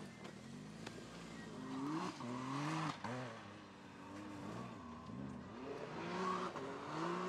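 Spartan electric ATV's motor whining under changing throttle, its pitch rising and falling again and again, with wind and tyre noise from the trail.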